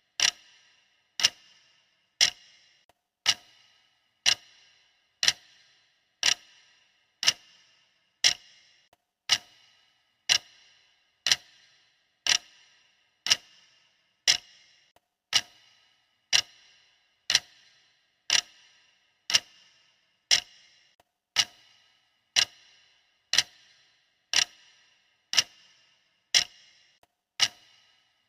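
Countdown timer's clock-tick sound effect, one sharp tick every second, each with a short bright ring, marking off the seconds.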